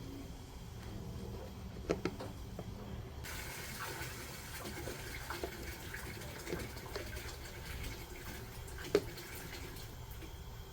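Water rushing into an electric water heater tank as it is refilled. About three seconds in, a louder, higher hiss of water joins suddenly, with a couple of sharp knocks along the way.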